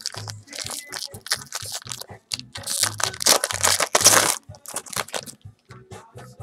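Foil trading-card pack wrapper crinkling and tearing open by hand, loudest about halfway through, over background music with a steady bass beat.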